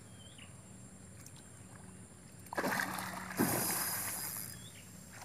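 A hooked barramundi thrashing at the water's surface, splashing in two sudden bursts about two and a half and three and a half seconds in, the second trailing off in a fading hiss of spray.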